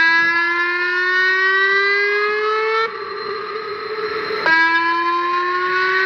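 Outdoor warning siren sounding a rising tone twice: each blast starts abruptly, glides slowly up in pitch for about three seconds and cuts off, with a pause of about a second and a half before the next.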